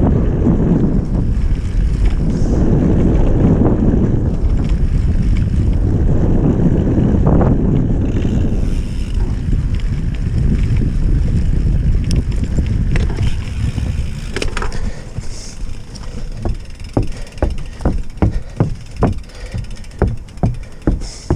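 Wind rushing over the microphone of a handlebar-mounted camera while a mountain bike is ridden over grass and paving. Midway the wind eases and a run of sharp knocks and rattles takes over, about two a second.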